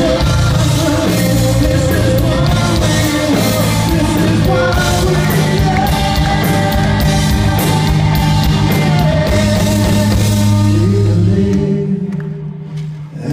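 Live rock band playing loud: electric guitars, bass and a drum kit with frequent cymbal crashes. About a second and a half before the end the full band drops out, leaving a much quieter, thinner sound.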